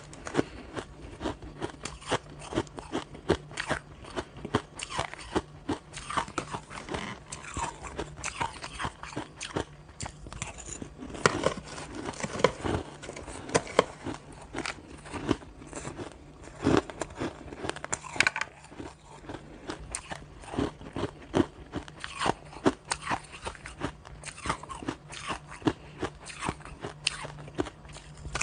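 Close-up crunching and chewing of mouthfuls of shaved and crushed ice, with a metal spoon digging into the ice; dense, irregular crunches several times a second.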